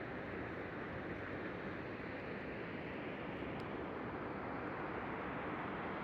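Steady rushing of Shomyo Falls, a very tall waterfall. The falling water is heard as an even noise without a break.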